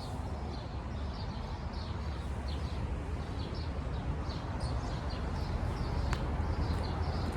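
Small birds chirping repeatedly over a steady low rumble, with one short click about six seconds in.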